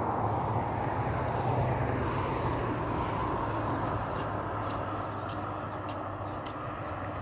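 Steady drone of a distant engine, with a low hum underneath. In the second half there is a run of short, sharp high ticks.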